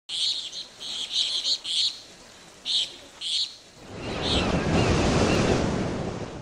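Nature ambience: short, high bird chirps repeating over a quiet background. About four seconds in, a rushing, surf-like noise swells up and stays loud.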